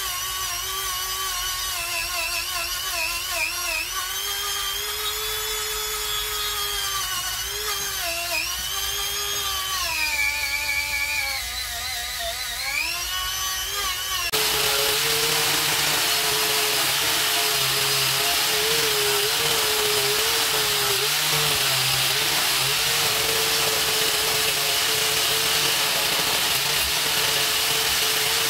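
Electric drill running a steel wire brush on a steel wheel rim. For the first half its motor whine sags and recovers in pitch as the brush is pressed on and eased off. About halfway through it turns abruptly to a louder, steadier whine over a harsh scratching hiss.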